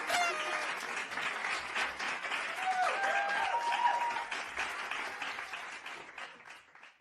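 A crowd of children clapping and cheering, with a few high-pitched shouts and squeals among the applause. The applause fades away over the last two seconds.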